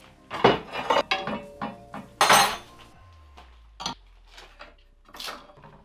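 Small metal parts and a sheet-metal bench grinder wheel guard clattering and clinking as they are set down on a wooden workbench: a rapid run of knocks in the first couple of seconds, the loudest a longer rattle about two seconds in, then a few lighter clinks.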